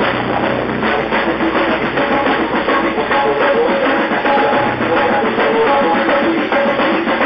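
Live band music, loud and dense, driven by a drum kit with steady drum hits under held instrument tones.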